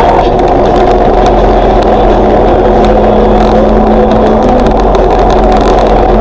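Car driving at highway speed, heard from inside the cabin: a steady, loud drone of engine and road noise.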